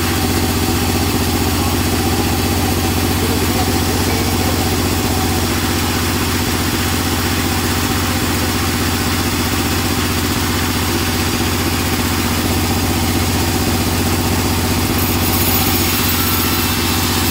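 Band sawmill running steadily, its blade sawing through a teak log over a constant low machine hum, the cutting noise growing brighter near the end. The uploader finds the teak very hard and the blade feels dull.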